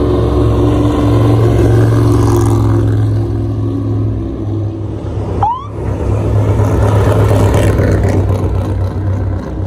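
Trophy truck engines running loud and deep as the desert race trucks drive past. About halfway through the sound dips briefly and there is a short rising squeal, then the engine drone carries on.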